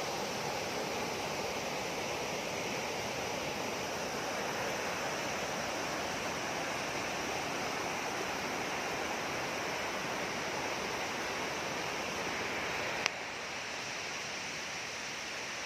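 Waterfall: a steady rush of falling water. A sharp click comes about thirteen seconds in, after which the rush is a little quieter.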